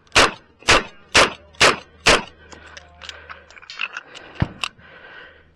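Five rapid shots from a Smith & Wesson Model 625-JM .45 ACP revolver, about half a second apart, followed by quieter clicks and knocks.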